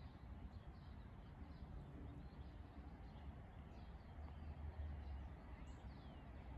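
Faint outdoor ambience: scattered short bird chirps, one a falling whistle near the end, over a low steady rumble.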